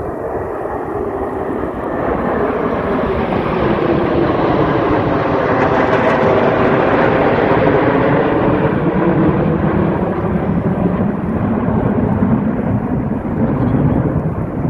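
Jet aircraft of the Saudi Hawks display team, BAE Hawk jet trainers, passing low in a flyby. Their noise swells to a peak about six to eight seconds in, with a sweeping rush, then slowly fades.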